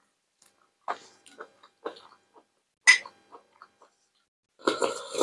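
Close-miked eating of boiled salted tripe: a string of separate wet chewing clicks, with one sharper click about three seconds in and a denser run of mouth noises near the end.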